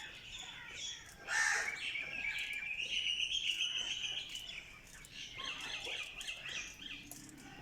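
Quail calling: a loud harsh call about a second and a half in, then a long rapid chattering trill, and a run of short chirps near the end.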